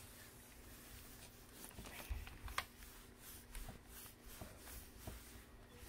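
Rubber-spiked pet grooming glove rubbing through a dog's coat: faint, soft rustling strokes with a few light clicks and knocks in the second half.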